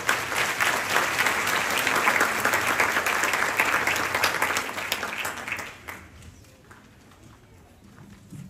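Audience applauding in an auditorium, a dense clatter of many hands that dies away about six seconds in.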